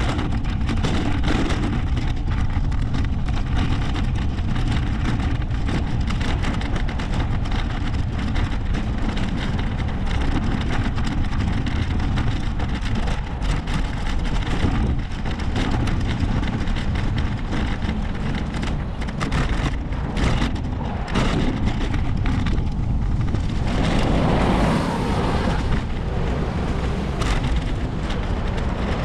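Wind buffeting the microphone of a camera on a moving bicycle: a steady low rumbling rush with crackle. It swells louder a few seconds before the end.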